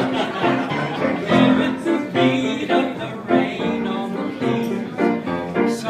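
Pop song with piano and keyboard accompaniment playing with a steady beat, an instrumental passage between sung lines.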